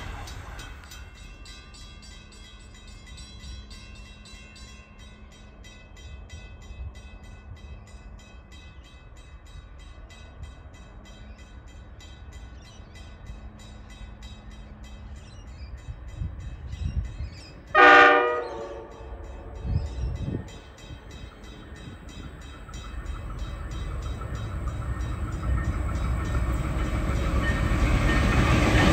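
Freight train noise dies away at the start, leaving a low distant rumble; about two-thirds of the way through a train horn sounds one short blast. Then the rumble of an approaching freight train grows steadily louder to the end.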